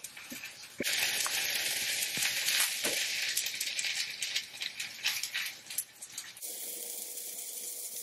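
Tomato paste squeezed out of a squeeze tube, crackling and sputtering as air pockets burst through the nozzle, with small clicks. The sound starts about a second in and stops abruptly about six seconds later.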